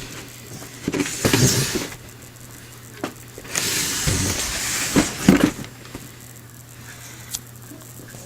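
A large cardboard model kit box being handled: rustling and sliding with a few knocks, over a steady low hum.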